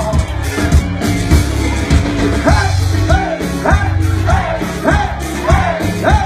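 Live band playing rock with singing over a heavy bass and drum beat. From about halfway through, a short rising-and-falling melodic figure repeats about every half second.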